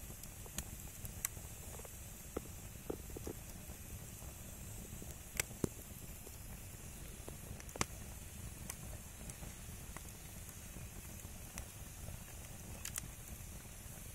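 Firewood burning, with scattered sharp crackles and pops over a steady low rumble; the loudest pops come about five and a half and eight seconds in.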